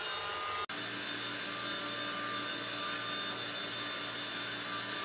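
Steady whirring hum of a small electric motor, with a few fixed tones in it. It cuts out for an instant just under a second in, then carries on.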